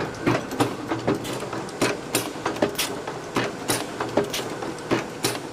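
Automatic chain-making machine running, its mechanism clacking sharply about two to three times a second over a steady machine hum.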